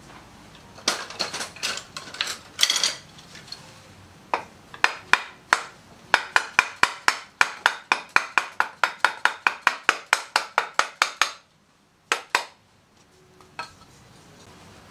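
Soft-faced mallet tapping a polished aluminium plate to seat it on a Harley-Davidson Shovelhead engine-and-transmission assembly. A few scattered knocks come first, then a steady run of about four to five taps a second that stops suddenly, followed by two lone taps.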